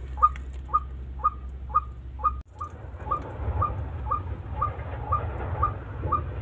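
A bird calling, a short falling note repeated steadily about twice a second, with the sound briefly cutting out about two and a half seconds in.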